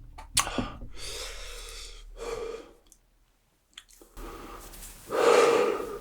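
Close-miked mouth sounds of eating spicy food: a couple of sharp mouth clicks, then heavy breaths in and out. A short pause falls in the middle, and a louder breath comes near the end.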